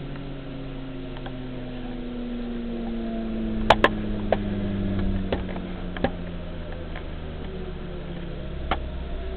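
SCMI F410 16-inch jointer's three-phase motor and three-knife cutterhead coasting down after switch-off, a hum whose pitch falls slowly and steadily. A few sharp clicks come through it, the loudest a pair a little under four seconds in.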